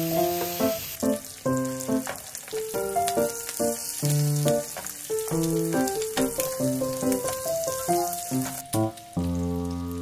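Pork belly slices (samgyeopsal) sizzling on a hot grill, a steady frying hiss, under background music with a gentle melody.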